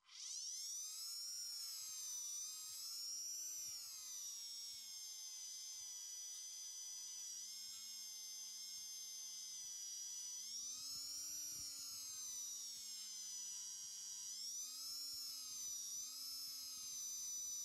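Handheld rotary tool spinning up and running with a high whine, a polishing wheel buffing a watch case. Its pitch dips and rises again several times as the wheel is pressed against the metal, with a light rubbing rasp.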